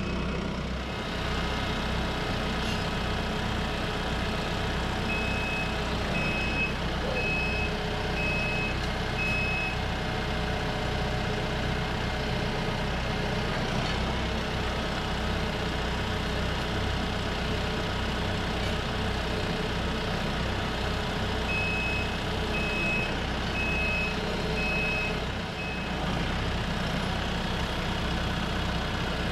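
Diesel engine of a TYM T654 compact tractor running steadily while it handles round bales with its front loader. A high-pitched beeper sounds twice, each time as a run of five short beeps.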